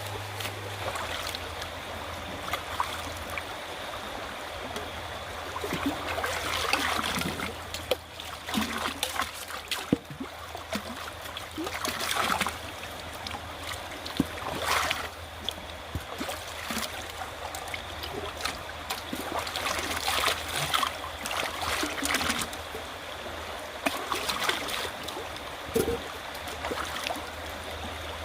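River water running: a continuous wash that swells and eases irregularly, with a faint steady low hum underneath.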